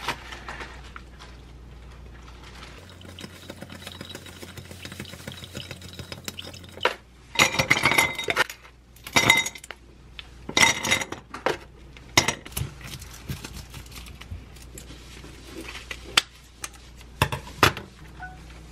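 Matcha stirred in a drinking glass with wooden chopsticks, then ice cubes added and stirred, clinking loudly against the glass in several bursts between about seven and twelve seconds in. A few single clinks follow near the end.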